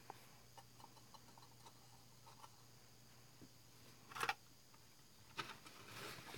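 Near silence with faint handling sounds: a few small ticks, and a brief rustle about four seconds in as a piece of paper towel is picked up.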